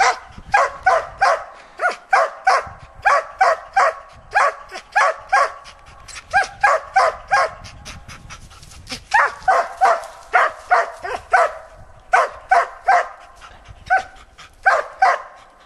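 Laika hunting dog barking steadily at a young lynx it holds up a tree: a working bay, the dog's sign that it has game stopped. Short sharp barks come in quick runs of two or three, about two to three a second, with a brief lull about halfway through.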